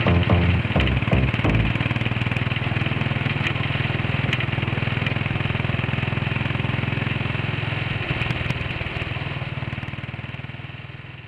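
An engine running steadily at idle, fading out over the last few seconds.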